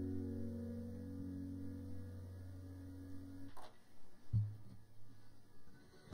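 The last notes of a guitar soundtrack dying away. After a soft click about four seconds in, a faint, steady low hum.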